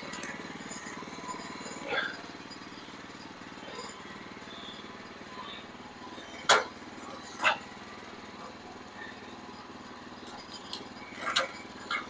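A small engine running steadily at a low idle, with several sharp metal clanks and knocks as a squared log is levered over with a turning bar on a bandsaw mill's bed; the loudest clank comes about six and a half seconds in, another a second later, and two more near the end.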